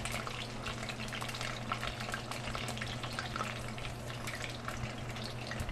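Food frying in hot oil: a steady sizzle dotted with small crackles and pops of spattering oil, over a low steady hum.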